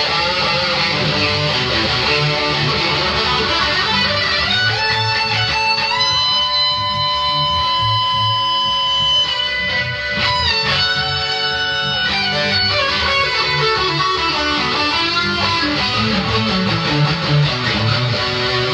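Stratocaster-style electric guitar playing a lead line of quick note runs, with a long held note about six seconds in that lasts some three seconds, and another held note around eleven seconds.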